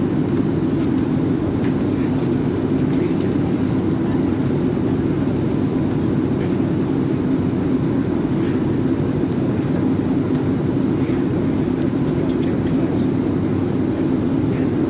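Steady low drone of an airliner cabin in flight: the engines and rushing air heard from inside the cabin, unchanging throughout.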